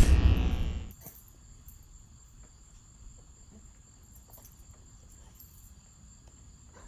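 A loud logo sound effect dies away within the first second. Then comes quiet outdoor ambience with a steady high insect trill.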